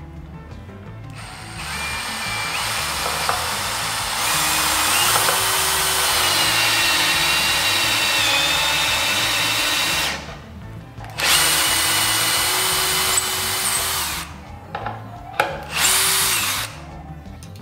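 Einhell TE-CD 18/50 Li-i BL 18 V brushless cordless drill driver on maximum torque, driving a hex-head screw into wood without a pilot hole. The motor runs under load for about nine seconds, stops, runs again for about three seconds, then gives a few short bursts near the end.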